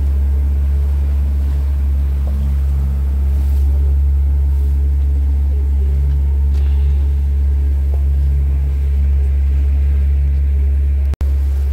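Motorboat's engine running steadily under way, a loud low drone heard from aboard; the sound cuts out for an instant near the end.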